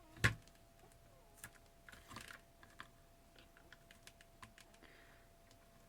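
Light clicks and taps of paper and crafting supplies handled on a tabletop: one sharp click just after the start, scattered small clicks after it, and a brief paper rustle about two seconds in. A faint steady hum sits under it all.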